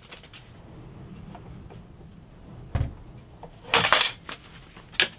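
Workshop handling noises: a dull thump, then about a second later a loud, rattling clatter of hard objects knocking together, and a sharp knock near the end.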